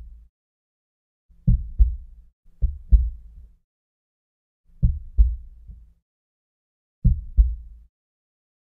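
Heartbeat sound effect: deep, low double thumps (lub-dub) with silence between them, four pairs about one to two seconds apart.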